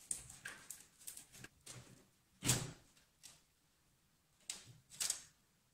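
Metal base plate of an old General Electric telephone being worked loose with a screwdriver and lifted off: a run of small clicks and scrapes, a louder knock about two and a half seconds in, and two more knocks near the end.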